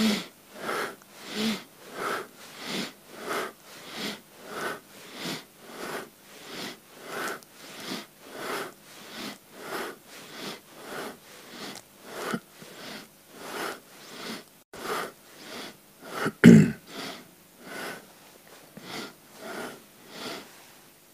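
Quick, even, audible breathing, an inhale or an exhale about every half second, paced to a seated spinal flex: breath in as the spine flexes forward, out as it flexes back. One much louder, deeper burst comes about sixteen seconds in.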